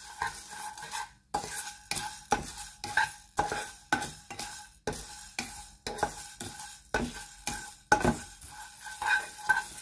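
A spoon stirring and scraping cumin seeds, fennel seeds and black peppercorns as they dry-roast in a pan, in quick repeated strokes about three a second.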